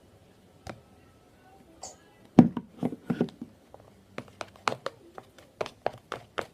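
Thick homemade shampoo slime being worked by hand or stirred in a plastic container. It gives wet clicks and pops, a few isolated at first. From about two seconds in they become a steady run of about four a second.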